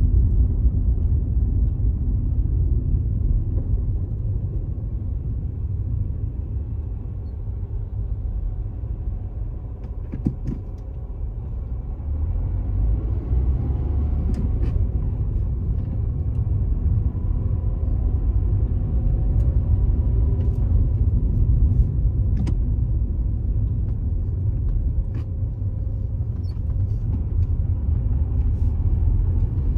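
Car being driven through city streets: a steady low rumble of road and engine noise, with a few faint clicks now and then.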